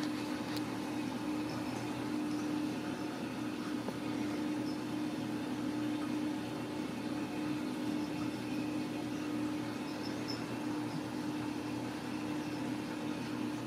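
A steady mechanical hum holding one pitch, over an even faint hiss, with a few faint light clicks about ten seconds in.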